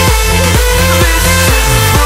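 Electronic dance music with a steady pounding beat, about two beats a second, and a falling bass glide near the end.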